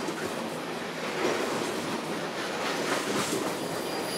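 Loaded coal train's hopper cars rolling along the rails, a steady rushing noise with no squeal or horn.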